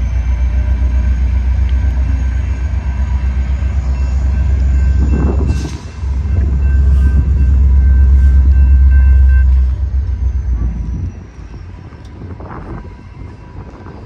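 Rail Runner commuter train's MP36PH-3C diesel-electric locomotive, an EMD 16-645 prime mover, running loudly with a low rumble as the train pulls in, with thin steady squealing tones above it. The rumble drops away sharply about eleven seconds in.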